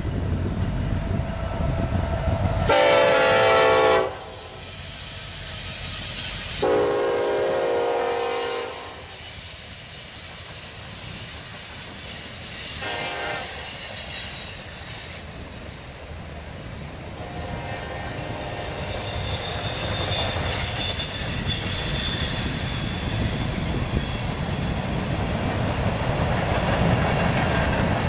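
Norfolk Southern freight train: the locomotive's air horn sounds two long blasts and then a short one, then the freight cars roll past with a steady rumble and clatter and high-pitched wheel squeal.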